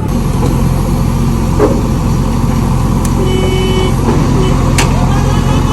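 Heavy diesel engine running hard and steady, the loud drone of a truck-and-backhoe recovery with the machines working under load. A short high tone sounds briefly about three seconds in.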